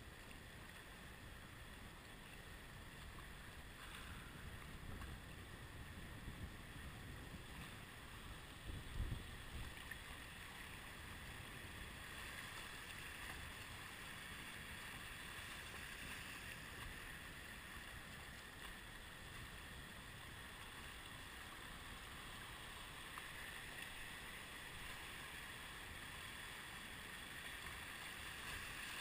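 River riffles rushing past the board: a steady, faint hiss of moving water, with a brief low thump about nine seconds in.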